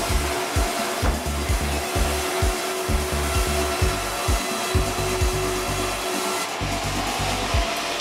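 Sawmill band saw running and ripping through a timber beam as it is fed through: a loud, steady whirr with a steady hum in it. Under it, low thumps repeat about twice a second.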